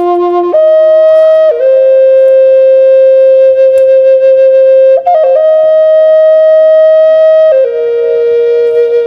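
Music: a slow flute melody in long held notes, each sustained for one to several seconds before stepping to the next pitch.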